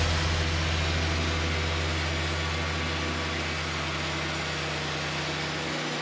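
Wood-Mizer LT40 portable sawmill running, its engine holding a steady pitch with a hiss above it, getting slightly quieter toward the end.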